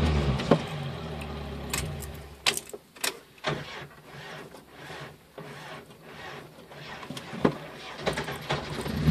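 Cabin noise of an old four-wheel-drive vehicle being driven on a rough dirt road: the engine runs under a steady rattle of the bodywork, with several sharp knocks as it jolts over bumps.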